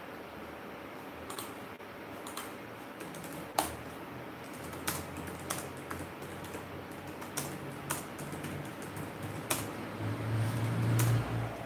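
Typing on a computer keyboard: scattered, irregular key taps and clicks, with a low hum underneath that grows louder near the end.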